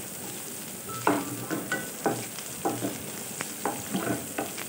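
Sliced onions, garlic, green chillies and curry leaves sizzling in shallow oil in a non-stick kadai, frying toward brown, while a wooden spatula stirs them, scraping and knocking against the pan several times a second in an uneven rhythm.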